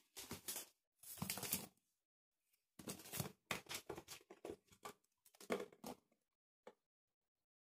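Large plastic liquid bottle handled and its cap twisted off: several short bursts of crinkly scraping and clicking plastic, ending in a single click.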